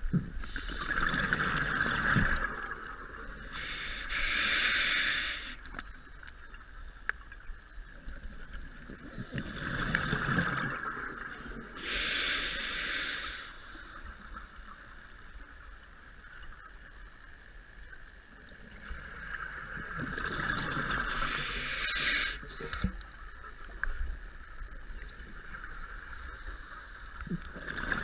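Scuba diver breathing through an open-circuit demand regulator underwater: three slow breaths, each a hiss of drawn air followed by a rush of exhaled bubbles, about every nine seconds.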